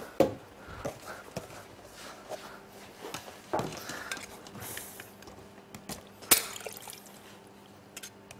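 Scattered knocks and clicks of kitchen handling: a plastic tub set down on a steel worktop and griotine cherries in kirsch lifted out of a glass clip-top jar into it. Two sharp clinks stand out, one just after the start and one about six seconds in.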